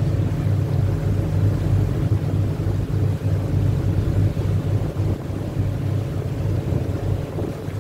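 River cruise boat's engine running with a steady low drone, with wind buffeting the microphone.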